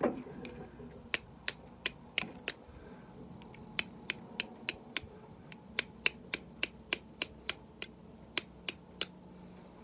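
Flint-and-steel strikes: a small hand-made fire steel struck against a piece of chert holding char cloth, to throw sparks for lighting a fire. Sharp clicks, about three a second, in runs of five to eight strikes with short pauses between.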